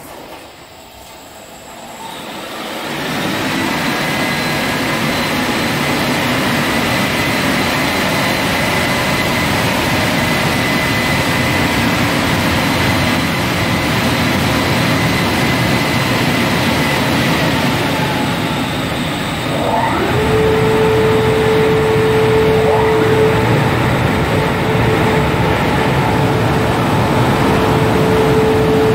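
Automatic car wash gantry's Turbo Dry blowers running: a loud, steady rushing noise with a whine, building up a couple of seconds in. About twenty seconds in, a lower tone slides up and then holds steady.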